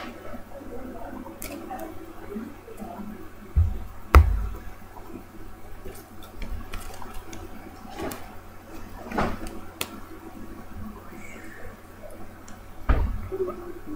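A deck of playing cards being handled and shuffled by hand: scattered soft clicks and rustling, with dull thumps about four seconds in and again near the end.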